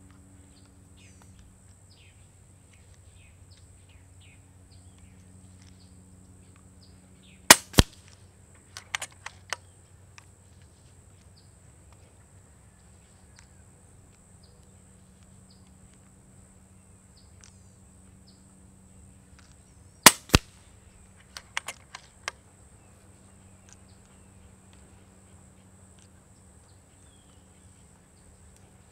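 Two shots from an FX Dreamline .22 regulated PCP air rifle, about twelve seconds apart. Each is a sharp crack with a second crack about a third of a second later, followed a second or so after by a few light clicks of the action being cycled for the next pellet.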